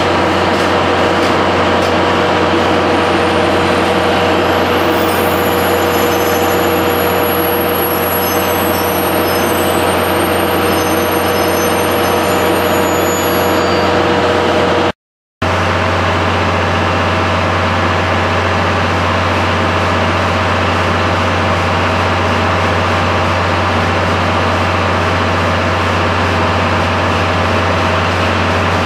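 DD51 diesel-hydraulic locomotive with its twin V12 engines idling, a steady low drone with a constant hum over it. The sound drops out completely for about half a second midway.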